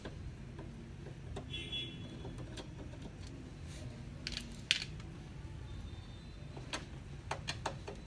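Scattered clicks and clatters of a screwdriver against a laser printer's plastic casing as the printer is handled and worked on. There is one sharp click about halfway through and a quick run of clicks near the end, over a low steady hum.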